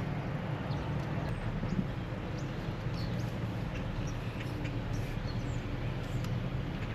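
Car engine running steadily at idle, a low rumble, with faint bird chirps scattered over it.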